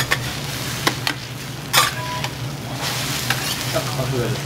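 Food sizzling on a teppan iron griddle, with metal spatulas clacking and scraping against the plate a few times, the loudest clack about two seconds in. A steady low hum runs underneath.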